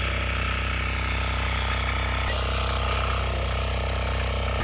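Engine of a ploughing machine running steadily.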